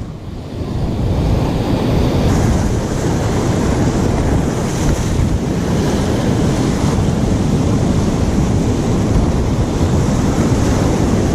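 Sea surf washing through a rocky gully, with wind buffeting the microphone.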